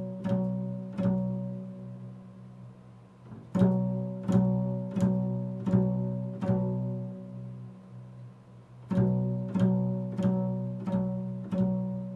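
Double bass plucked pizzicato, sounding the interval of a fifth as two notes together. The plucks come in runs of about five, roughly two-thirds of a second apart, each ringing and fading, with short pauses between the runs.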